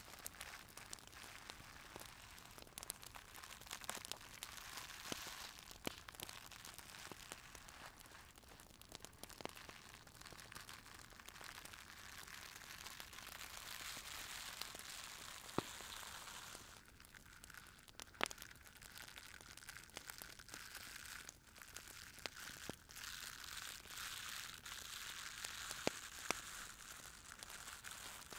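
Close-miked ASMR crinkling and rustling, a dense stream of small crackles and clicks with a few sharper clicks here and there.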